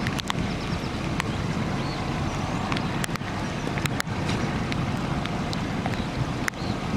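Muddy storm runoff rushing through a drift of piled hailstones, a steady watery rush mixed with wind buffeting the microphone, with a few sharp clicks scattered through it.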